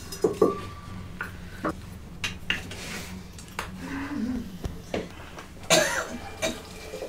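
Metal cooking pots, an aluminium kettle and a steel pot, knocking and clinking as they are set on and shifted over a wood fire, one knock leaving a short ring. A person coughs about six seconds in.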